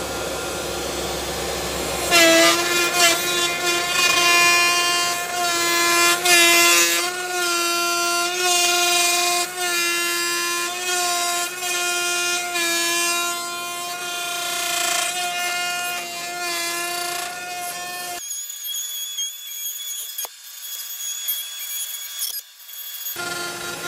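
CNC machine cutting metal: a steady, high-pitched, harsh ringing whine from the cutter over scraping noise. The pitch shifts slightly now and then as the cut changes.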